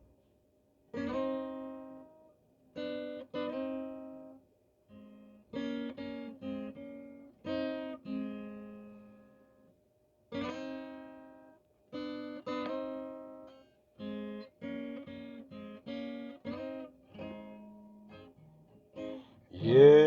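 Acoustic guitar playing an instrumental introduction: chords plucked and left to ring out, in short phrases with brief pauses between them.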